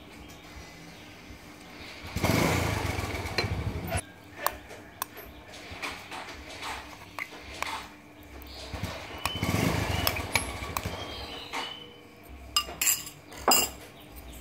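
Spoon and ingredients knocking and clinking against an aluminium cooking pot, with a cluster of sharp clinks near the end as a spoonful of fried chili paste goes in. Two louder stretches of rushing noise come about two seconds in and again around the middle.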